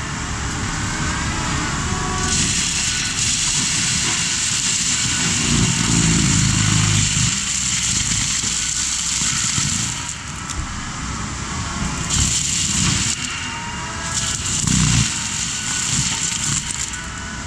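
Case 620 skid steer running under load with its Shearex forestry mulching head spinning and chewing through brush and weeds, with crackling and crushing of the material. A bright hiss over the steady machine sound cuts in and out several times as the head bites into the growth.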